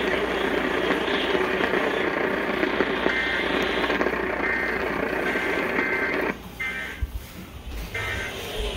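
Radio receiver audio buried in heavy static. About six seconds in, the hiss drops away and short separate bursts of high warbling data tone follow, like the end-of-message bursts of an EAS alert.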